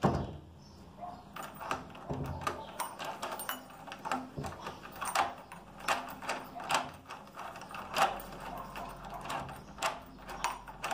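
A key turning in a door's lock cylinder and the lock being worked by hand: a run of irregular sharp metallic clicks.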